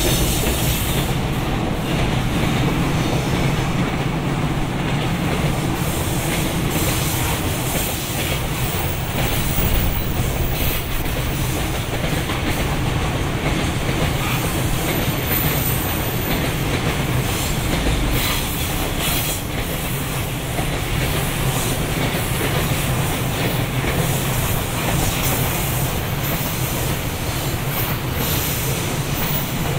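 Freight train rolling steadily past at close range, the wagons' wheels running on the rails.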